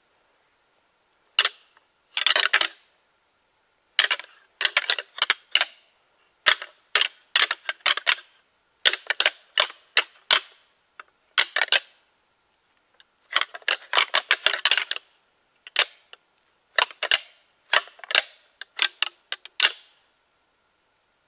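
A deer rattling call worked by hand: clacking and grinding in short bursts of rapid clicks with brief pauses between, imitating two whitetail bucks sparring to call deer in.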